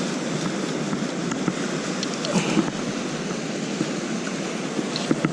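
Ocean surf washing in a steady hiss, with a few faint ticks over it.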